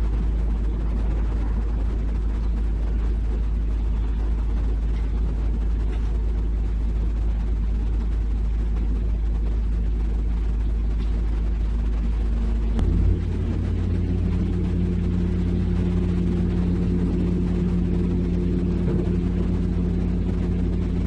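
Heavy diesel engine running steadily with a low drone. About two-thirds of the way through, the engine note changes, settling into a new steady pitch.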